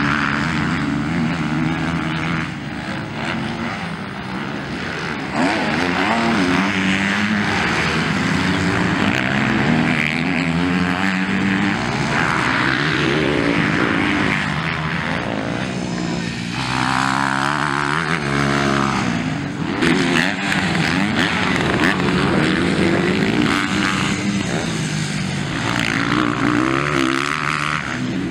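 Motocross bikes racing on a dirt track, their engines revving up and down so the pitch keeps rising and falling.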